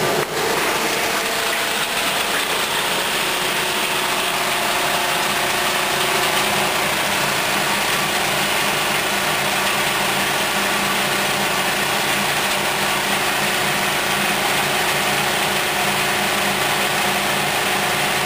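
Crushing machine running steadily, a continuous mechanical noise with a steady hum, as it grinds material into small granules.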